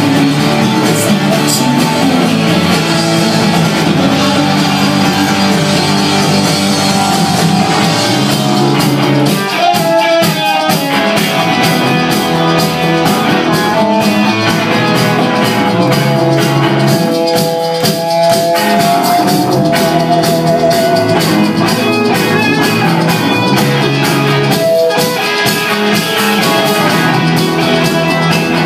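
Rock band playing live on electric guitars and drum kit, with held lead guitar notes about ten seconds in and again around seventeen seconds.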